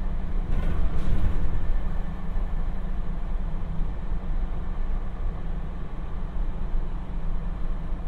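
Inside the passenger cabin of a JR 721 series electric multiple unit running on the line: a steady rumble of wheels on rail and running gear, with a couple of brief knocks about a second in.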